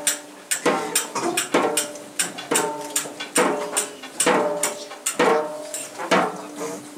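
Slow, even series of struck, pitched percussion notes, about one a second, each with a sharp attack and a short ringing fade.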